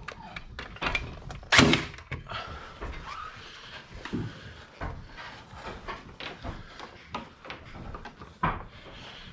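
Lighting cable being pulled and handled through timber roof studwork: rubbing and scattered knocks against the wood, with one loud thump about one and a half seconds in.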